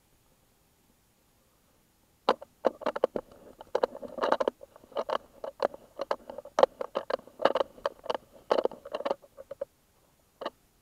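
A dense run of irregular sharp clicks and scratchy crackles, starting about two seconds in and stopping shortly before the end, with one last click near the end.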